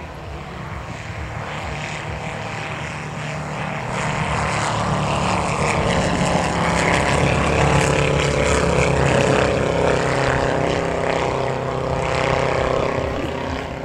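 Propeller engine of an ultralight Fieseler Fi-156 Storch replica flying low past. It grows louder over a few seconds, is loudest in the middle, then fades as the plane flies away.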